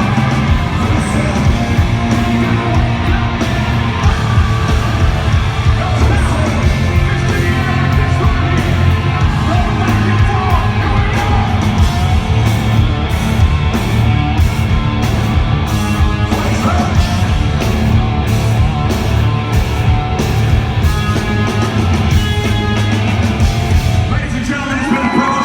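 Hard rock band playing loud and live, with a singer belting over distorted guitars and a steady drum beat.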